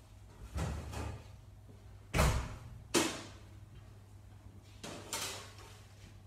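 A few sharp knocks and clunks, as of doors or metal trays being handled. The loudest comes about two seconds in and another a second later, with softer ones before and after, over a steady low hum.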